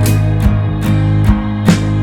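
Background music: guitar-led track with a steady beat.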